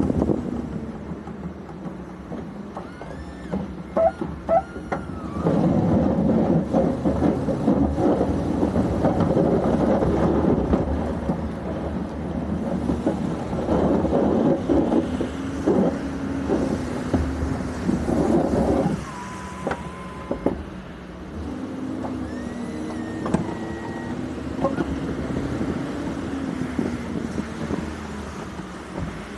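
Ford F-350 pickup driving while plowing snow: the engine runs with its pitch rising and falling as the truck speeds up and slows. Under it is a steady rushing noise, loudest through the middle stretch.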